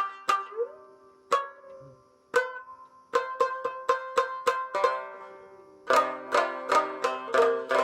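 Calf-skin-headed shamisen of mai daeng wood being played: sharp plucked notes with a short ringing decay. A few spaced notes, one sliding up in pitch, lead into a quicker run about three seconds in, and the playing grows busier and fuller near the end.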